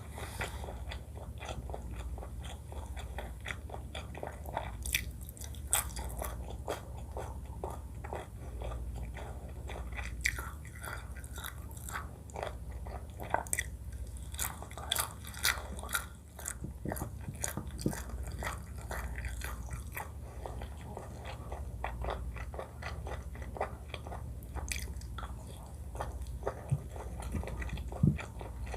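Close-miked eating sounds: chewing and biting with many short, irregular mouth clicks and smacks, and one sharper click near the end.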